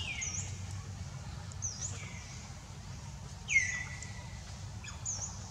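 Baby monkey giving several high-pitched squeaking calls, each sliding sharply down in pitch and then holding briefly, the loudest about three and a half seconds in.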